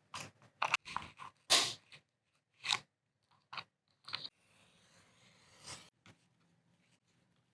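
Hand-crafting noises on a small handmade model: a string of short, irregular crunching and scraping strokes, the loudest about one and a half seconds in, then a longer, softer scrape about five seconds in.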